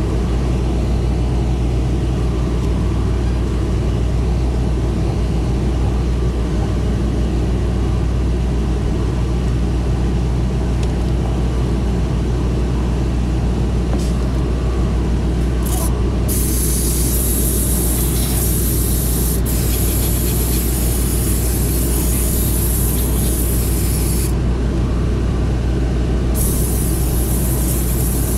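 Steam cleaner wand hissing in bursts: short spurts about halfway, then a long hiss lasting several seconds, and another couple of seconds of hiss near the end. A steady low hum runs underneath.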